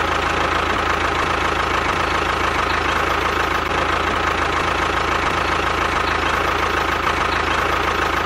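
Tractor engine running steadily at idle-like speed, a low even knock with a steady high whine over it, cutting off just after the end.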